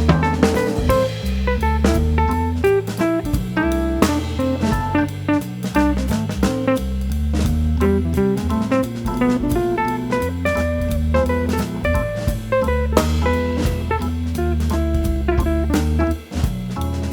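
Background music: a jazzy tune with plucked guitar over bass and drum kit, with a steady beat.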